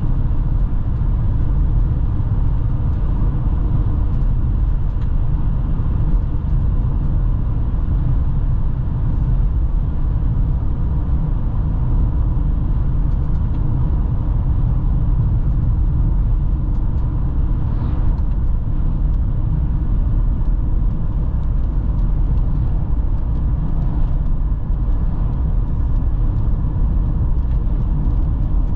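A car driving at road speed: a steady low rumble of road and engine noise.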